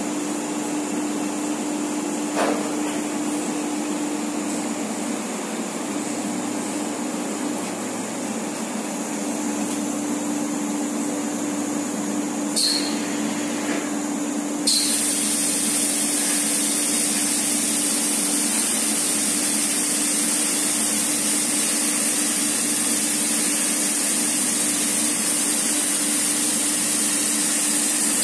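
Packaging-line machinery running with a steady hum, with a single knock about two seconds in and a click near the middle. Partway through, a loud steady air hiss switches on abruptly and holds: the vacuum of the slip-sheet placer's suction-cup gripper, picking up a paper sheet to lay on a pallet.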